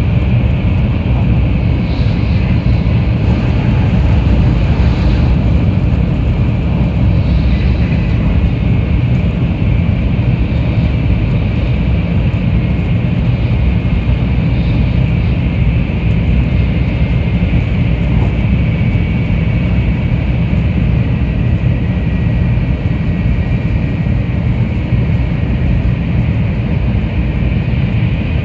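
Taiwan High Speed Rail 700T train heard from inside the passenger cabin while running at speed: a steady, even rumble of wheels and air with a faint high whine over it, and heavy rain striking the window glass.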